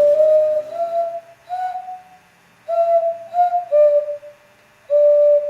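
Ceramic clay whistle being blown in a run of short, clear notes that step up and down in pitch like a simple tune, with two brief pauses in between.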